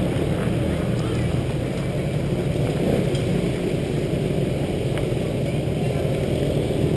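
Steady low engine drone, with a few faint clicks.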